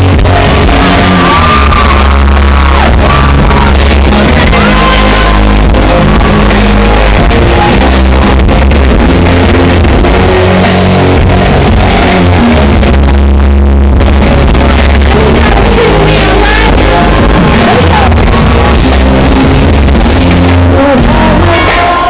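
Live pop concert heard from within the crowd: an amplified band with a heavy, repeating bass line and a woman singing, with audience shouting over it. The recording is very loud and pinned at the top of its level throughout.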